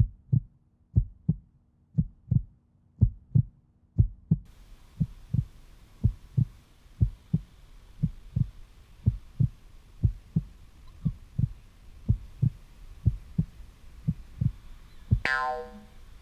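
Steady low thumping, about two beats a second, like a heartbeat sound effect. The first few seconds are dead silent behind it. About a second before the end, a short pitched tone sounds once.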